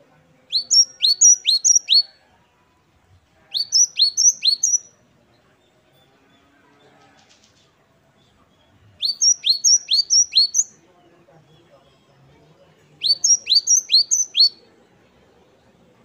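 Cinereous tit (gelatik batu, the grey Asian form long classed as the great tit, Parus major) singing its 'wucit-wucit' song: four bursts of three or four quick repeated two-note phrases, each note a sharp high downward sweep, with pauses of a few seconds between the bursts.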